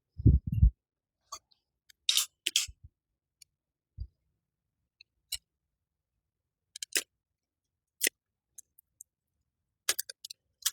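Scattered sharp snips and snaps of a woody honeysuckle vine being trimmed and pulled free, after a low thump near the start.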